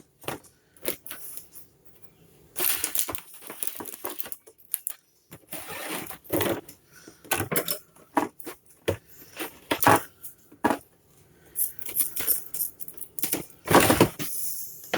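Irregular clicks, taps and rustles of things being handled and set down, with short pauses in between, as the industrial-strength Velcro is fetched and got ready.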